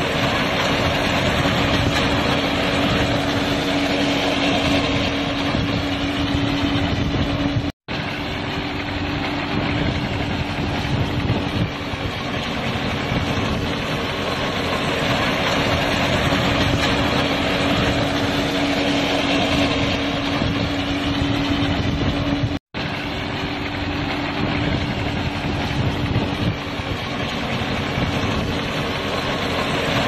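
Small round baler running while it picks up and bales straw stalks: a steady, dense machine noise with a constant hum. The sound cuts out for an instant twice.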